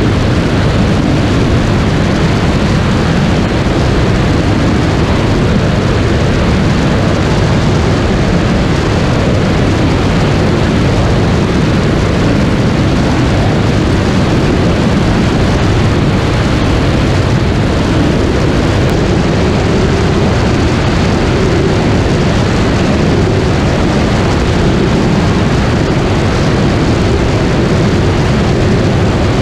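Sonex homebuilt light aircraft's engine and propeller at full power through the takeoff roll and climb-out, a steady loud drone. Heard from a camera mounted outside on the airframe, so wind rushing over the microphone dominates.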